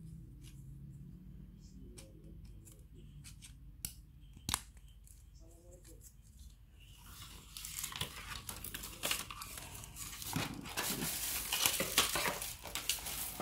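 Plastic parts of an air-conditioner deflector being handled by hand: a few sharp plastic clicks from the bracket arm, then, from about seven seconds in, a long stretch of dense rustling and scraping as the perforated plastic panel is moved and flexed on a tiled floor.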